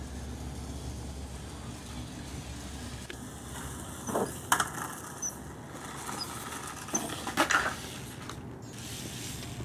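Team Associated SC28 1/28-scale electric RC short-course truck driving on a concrete driveway, over a steady low background noise. Sharp knocks come about four and a half seconds in, and a cluster of knocks around seven and a half seconds in as the truck crashes and ends up on its roof.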